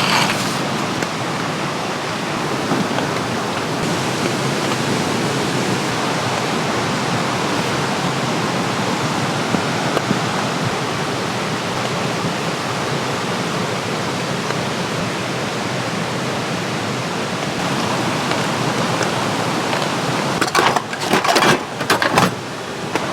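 Steady hiss of rain falling. Several sharp clicks and knocks come near the end.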